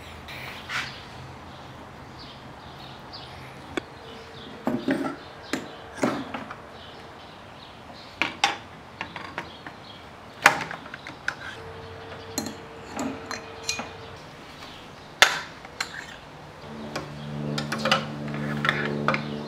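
Scattered metallic clinks and knocks of canned-heat fuel cans being set into a steel oven drawer and the drawer being handled, with a longer sliding scrape near the end.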